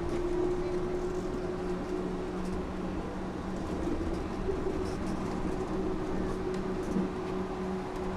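Yurikamome rubber-tyred automated train cruising between stations, heard inside the car: steady rolling noise with a constant two-note hum from the drive.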